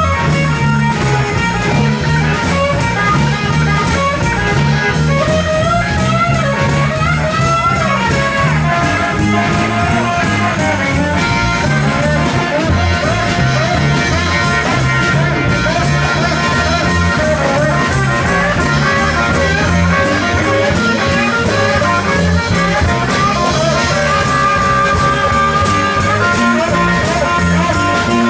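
Live blues-rock band playing: electric guitar carrying bending melodic lines over a drum kit, steady and loud throughout.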